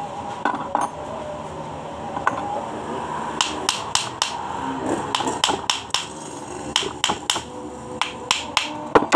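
Hammer striking a Suzuki Katana starter solenoid, metal on metal, to open its casing. A couple of single knocks come first, then from about three and a half seconds in a run of sharp strikes, about two to three a second.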